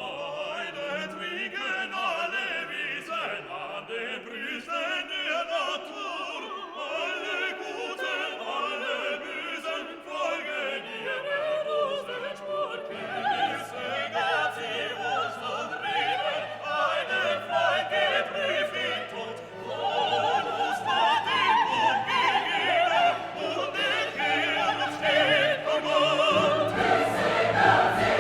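Background music: classical or operatic singing with orchestra and choir, fuller low accompaniment entering about halfway through and again near the end.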